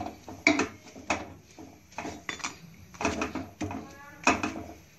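A wooden khakhra presser knocking and rubbing as it is pressed down on a khakhra on a hot tawa, in irregular knocks about two or three a second. A brief pitched cry, like a small voice, sounds about four seconds in.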